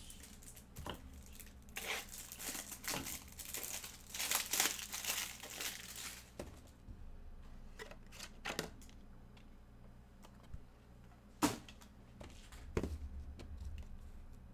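Trading-card box or pack wrapping torn open and crinkled for a few seconds, followed by scattered handling clicks and taps, one sharp click standing out near the end.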